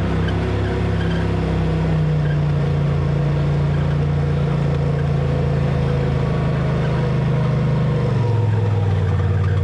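Four-wheel-drive vehicle's engine running steadily as it drives along a sandy trail. Its pitch steps down about eight seconds in.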